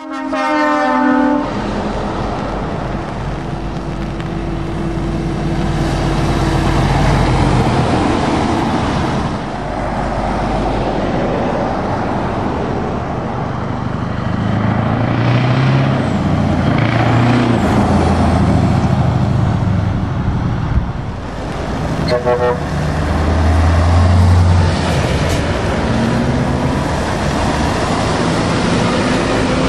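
Heavy lorries driving past on a wet road: diesel engines pulling with rising and falling revs and a steady hiss of tyres on wet tarmac. A truck air horn sounds for about a second at the start, and gives another short toot about three-quarters of the way through.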